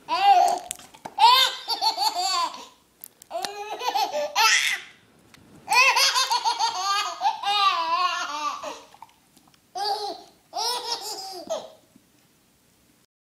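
A baby belly-laughing in about six separate bouts of rapid, high-pitched laughter, with short pauses between them, falling quiet near the end.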